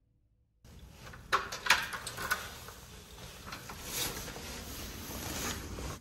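Rustling handling noise with several sharp clicks and knocks, starting suddenly about half a second in; the loudest clicks come around a second and a half in.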